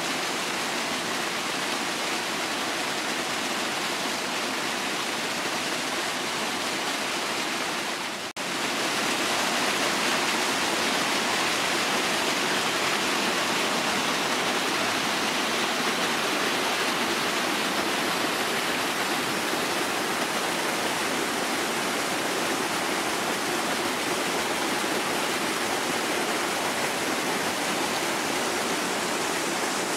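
Flowing water rushing steadily, with a brief drop-out about eight seconds in, after which it runs slightly louder.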